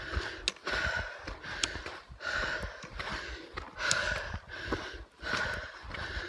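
A hiker breathing hard and fast, close to the chest-mounted phone's microphone, with a rush of air in and out about every 0.7 seconds. Short sharp clicks fall now and then between the breaths.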